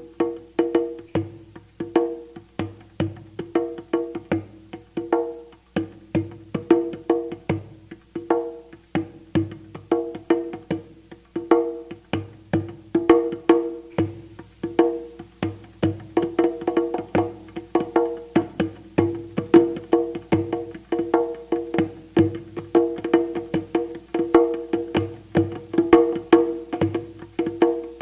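Struck pitched percussion played in a fast, even rhythm, several strikes a second, with two ringing notes sounding on each stroke, as in a meditative sound-healing piece.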